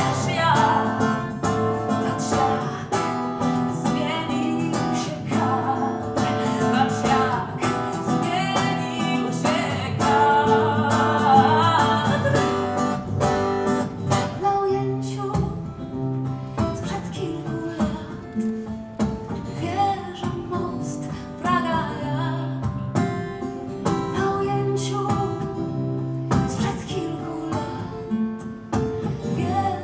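A woman singing to her own strummed acoustic guitar, in a steady rhythm. The voice drops out for short stretches between lines while the guitar plays on.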